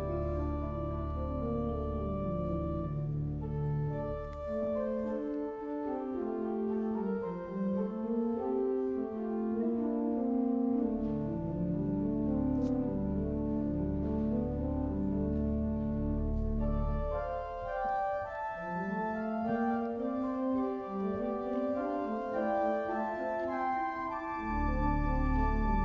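Pipe organ playing a slow piece of sustained chords in several moving voices, over deep bass pedal notes that drop out twice for several seconds and come back in.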